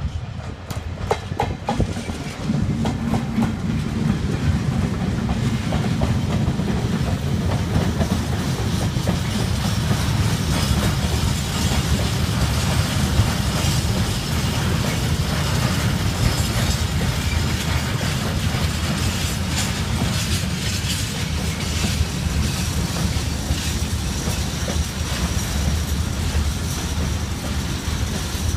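Class 70 diesel locomotive and its engineers' train of open wagons and ballast hoppers rolling past. The train gets louder about two seconds in, then gives a steady rumble with the wheels clicking rapidly over rail joints.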